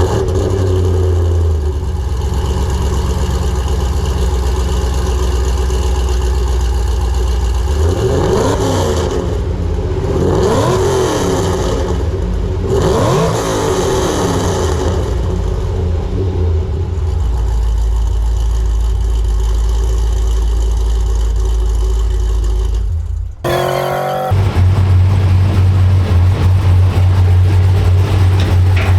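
Supercharged 6.2-litre V8 of a 2010 Chevrolet Camaro 2SS on the move, a steady low drone. About a third of the way in it revs up and down several times, rising and falling in pitch, then settles back to a steady drone. The sound breaks off briefly late on and comes back louder and deeper.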